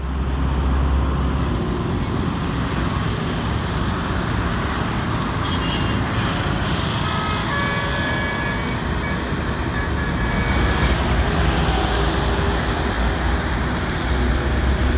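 Busy city road traffic: motorcycles, cars, auto-rickshaws and buses passing in a steady wash of engine and tyre noise, with a few short high tones about six to eight seconds in and a swell of louder, brighter noise from about ten seconds on.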